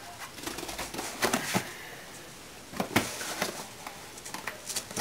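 Duct tape being pulled off the roll in short, squeaky rasps, three or four times, with cardboard tubes and bedding rustling as they are handled.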